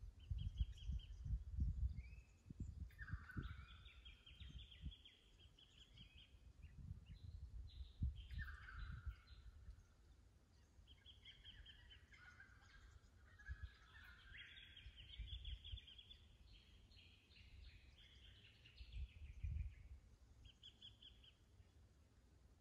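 Several wild birds calling: short repeated trills, falling whistled notes and chattering, busiest in the middle. Low gusts of wind buffet the microphone, strongest in the first few seconds.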